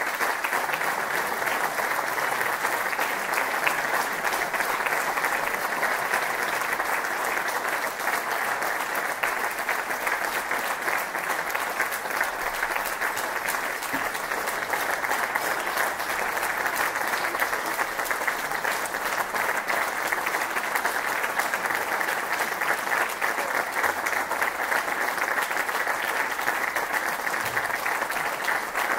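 Audience applauding steadily in a hall, a dense, even clapping that keeps going at the close of a percussion performance.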